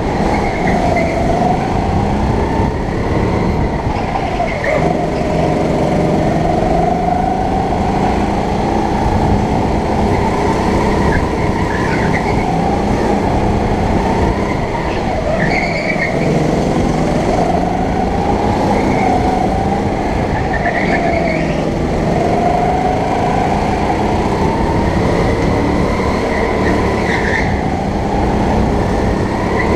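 Sodi rental go-kart's motor running at speed through a lap, its pitch rising on the straights and dropping into the corners every few seconds.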